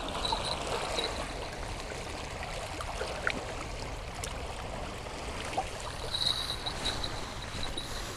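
Small lake waves lapping and trickling along the shore, a steady watery wash with a few faint clicks.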